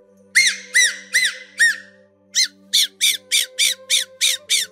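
Parrot squawking: four separate squawks in the first two seconds, then, from about halfway through, a quicker run of shorter squawks at about four a second.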